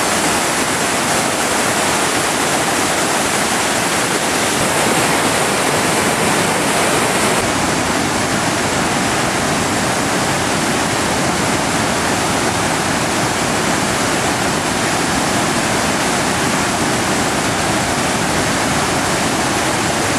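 Floodwater pouring over a low-head dam and churning in the whitewater below it: a loud, steady rush of water.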